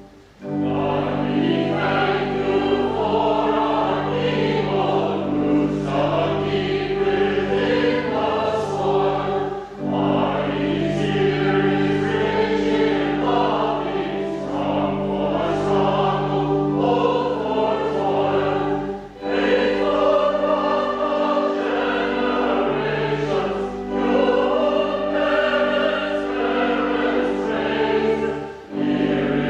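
A choir singing sacred music over steady held low notes, with short breaks between phrases about every nine or ten seconds.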